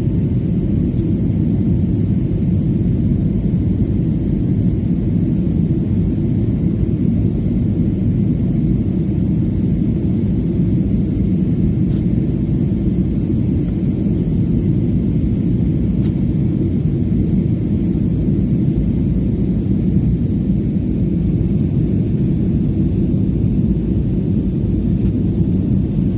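Steady low roar of jet engines and airflow heard inside the cabin of an Airbus airliner climbing out after takeoff.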